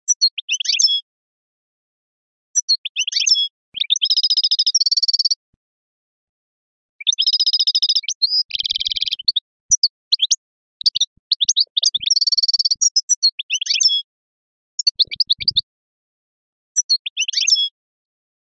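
A songbird singing Eastern-style (sharqi) song: phrases of rapid, varied chirps and buzzy trills, broken by short pauses.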